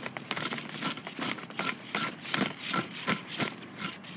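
Knife blade scraping the spine clusters off a prickly pear (nopal) cactus pad in quick repeated strokes, about three a second.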